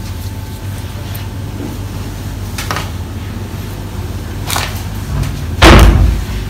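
Cotton padding and plaster splint material being handled on a table, with a couple of light knocks and then one loud, sharp thump near the end, over a steady low hum.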